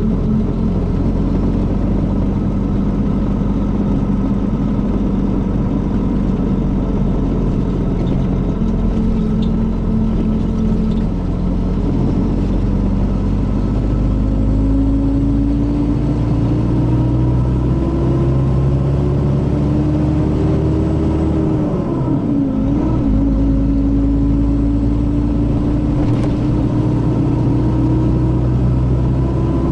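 Mercedes-Benz O500RS coach's diesel engine running under way, a note the uploader likens to the older O400RSE. Its pitch climbs slowly for several seconds, then dips briefly and recovers a little past the middle before holding steady.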